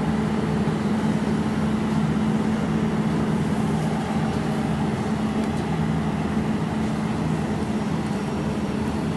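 Jewelry laser welding machine running with a steady hum holding a low tone, with no clear welding pulses.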